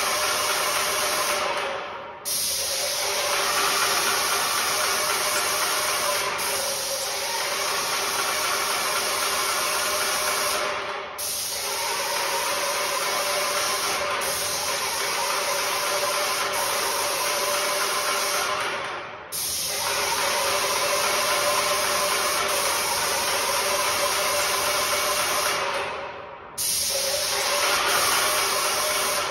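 Hose-fed spray gun spraying a coating onto window glass: a loud continuous hiss with a steady hum underneath, breaking off briefly four times.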